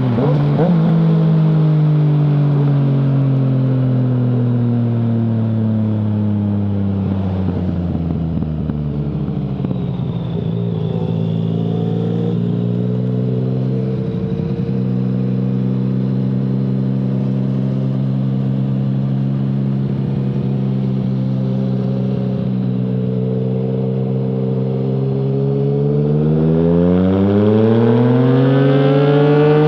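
Yamaha MT-09's three-cylinder engine through an Akrapovic full-system exhaust with no dB killer, heard while riding. Revs fall for the first several seconds, pick up briefly about eleven seconds in, then hold steady for a long stretch before climbing hard under acceleration near the end.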